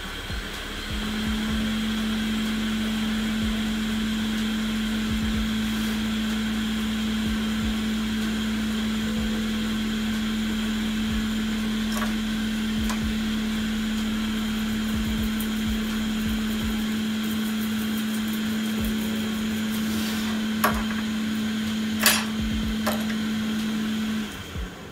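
A small electric blower motor running at a steady pitch with a hiss of moving air, its pitch stepping up slightly about a second in, then cutting off just before the end. A few light clicks come near the end.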